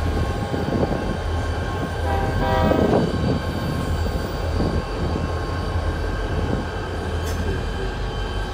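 Several diesel locomotives running light past a grade crossing, their engines giving a steady low rumble. Steady ringing tones run over the top, loudest about three seconds in.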